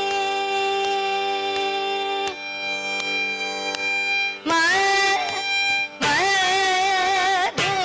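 Carnatic pallavi in raga Dharmavathi: voice and violin play long held and sliding notes over the steady drone of an electronic sruti box, with a few light mridangam strokes. About two seconds in, the melody drops out for roughly two seconds, leaving the drone and the strokes, then returns with a rising glide.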